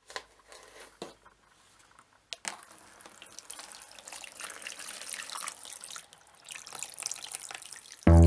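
Water poured onto a compressed substrate brick in a plastic tub, splashing and trickling steadily, after a few light knocks in the first couple of seconds. Music cuts in loudly near the end.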